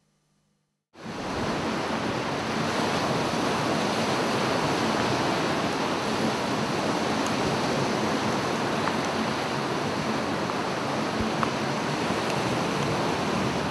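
Baltic Sea surf breaking on the beach, with wind buffeting the microphone: a steady rush that starts suddenly about a second in.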